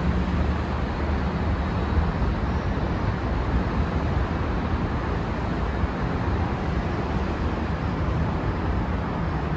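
Steady low rumble with an even hiss over it, no sudden sounds: a diesel railcar running far down the track, mixed with open-air traffic and wind noise.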